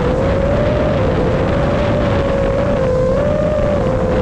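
Onboard sound of a 5-inch FPV quadcopter: its brushless motors and propellers whining at one steady pitch that wavers slightly up and down with the throttle, over wind buffeting on the GoPro's microphone.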